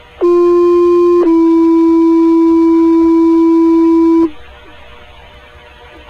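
Two-tone sequential fire paging tones received over a handheld scanner radio: a steady one-second tone, then a slightly lower tone held for about three seconds, the alert that sets off the fire station's pagers before a dispatch. Faint radio hiss before and after the tones.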